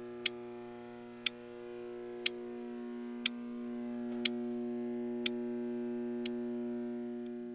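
A wall clock ticking once a second, seven sharp ticks with the last one faint, over a steady held synthesizer chord.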